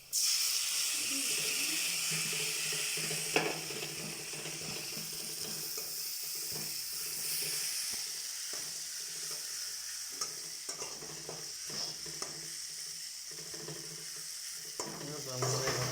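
Ground ginger, garlic and onion paste sizzling in hot oil in a pan, the sizzle starting suddenly as it goes in and easing after a few seconds, with a spatula stirring and scraping in small clicks as it fries toward colour.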